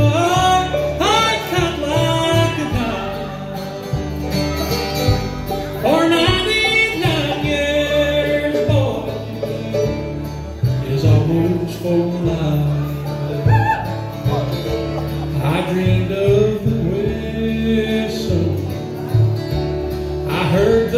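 Live bluegrass band playing a song: banjo, fiddle, upright bass and acoustic guitar, with a man singing lead.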